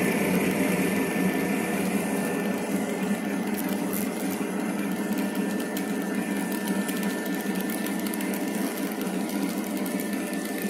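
Model railroad freight cars, black Burlington Northern hoppers, rolling past on the layout track: a steady, rapid rattle of small wheels on the rails that fades slightly as the last cars go by.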